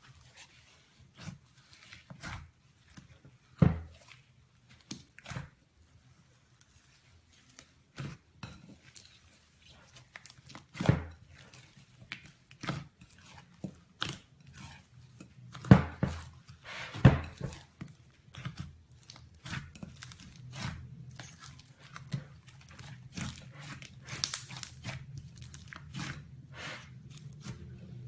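Slime being squished and poked by hand, making irregular clicks and pops, with a few louder pops.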